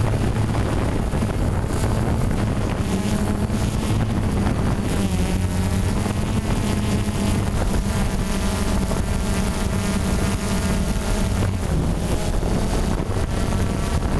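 Quadcopter drone's motors and propellers humming steadily, the pitch shifting slightly, with wind rushing over the microphone.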